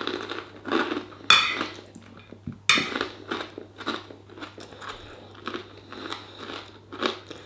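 A person chewing and crunching food close to the microphone: irregular crunches, the sharpest about a second and a half and about three seconds in, with softer chewing between.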